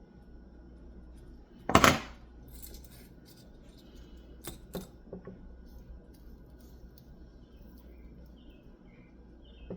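A loud, short clatter of small tools or parts handled on a workbench during soldering, about two seconds in, followed a few seconds later by a few light clicks.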